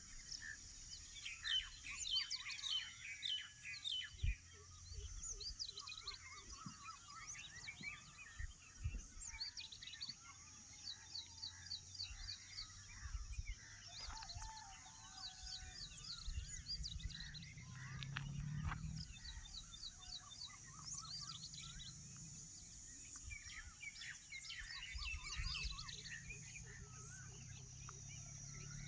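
Many birds chirping and calling at once, short repeated chirps and trills, over a steady high hiss. A low rumble swells briefly about two-thirds of the way through.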